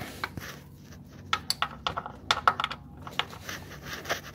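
13 mm ratchet wrench clicking in short, irregular runs as the oil-pan drain plug is tightened back in after draining the oil.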